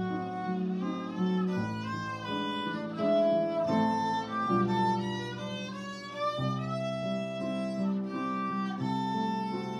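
A violin plays a melody of bowed, sliding notes over a lower accompaniment whose bass notes change every second or two.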